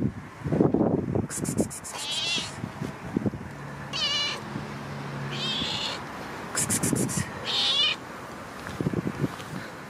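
Black cat meowing repeatedly: about five separate high-pitched meows spread over several seconds.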